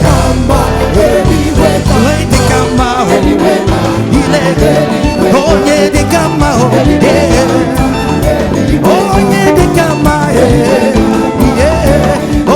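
Live African gospel praise music: a band playing with a steady bass and percussion, and voices singing over it.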